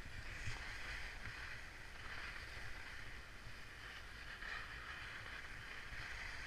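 Wind rumbling on a chest-mounted GoPro's microphone over a steady airy hiss, riding a ski chairlift.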